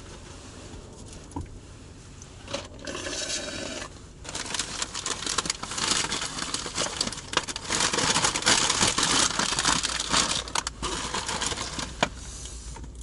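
Food packaging crinkling and rustling as it is handled and opened, with a few light knocks. It is faint at first, dense crackling runs from about four seconds in to about eleven, and a sharp click comes near the end.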